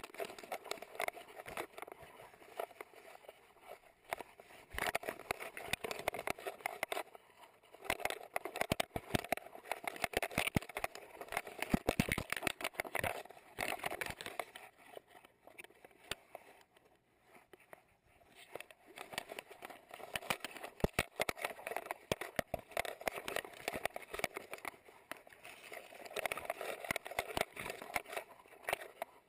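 Rustling, scraping and many small clicks from a camera strapped to a husky as the dog moves through grass and leafy brush beside a chain-link fence. The noise comes and goes in waves as the dog moves and pauses.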